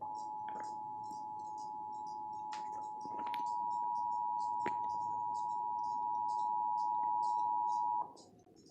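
Emergency Alert System two-tone attention signal, its two steady tones (853 and 960 Hz) sounding together for about eight seconds before cutting off. It announces the spoken severe thunderstorm warning that follows.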